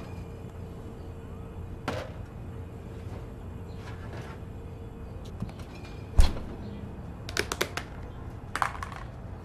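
Kitchen handling sounds at a refrigerator and a plastic tub: a knock, then one sharp thump about six seconds in, the loudest sound. A quick run of light clicks follows, with a few more near the end.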